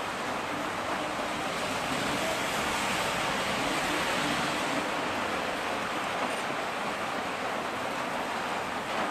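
Steady rushing noise, the wind-and-road rush heard on a camera while riding along, a little louder from about two seconds in.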